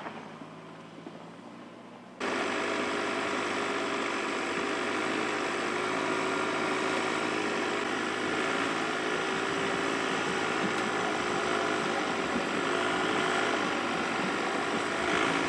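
Volkswagen Passat Alltrack engine running at low, steady revs as the car drives slowly over a grass track. The sound is quieter at first and jumps louder about two seconds in, then holds a steady, slightly wavering hum.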